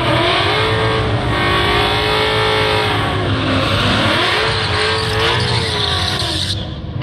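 Ford Mustang GT's Coyote V8 doing a burnout: the engine is held at high revs, rising and falling in pitch, over the hiss of spinning tyres. The tyre hiss cuts off suddenly near the end.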